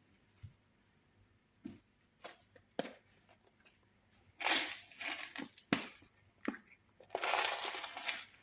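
Whole cloves being added to a saucepan: a few light clicks, then two longer rustling, crackling bursts about four and seven seconds in.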